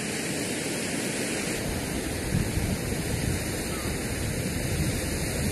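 Steady rushing outdoor noise of wind and sea surf, with low, uneven wind buffeting on the microphone from about two seconds in.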